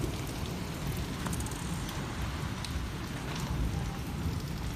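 Steady rain falling, with a low, uneven rumble underneath and a few faint drip ticks.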